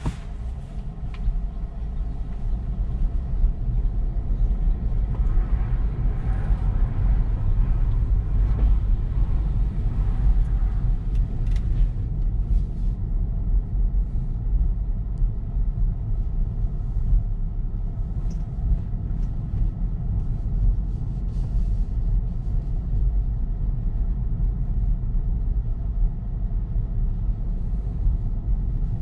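Steady low road and tyre rumble inside the cabin of an electric Tesla driving slowly down a residential street.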